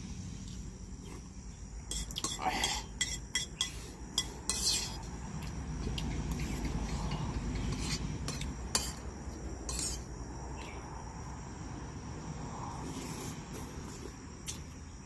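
Metal spoon clinking and scraping against a plate as someone eats, in two clusters of clicks, over a steady faint trill of insects.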